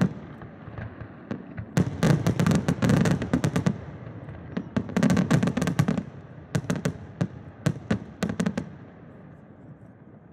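Fireworks display: aerial shells bursting in rapid volleys of sharp bangs and crackles with deep booms, in three clusters, then dying away to a fading rumble over the last two seconds.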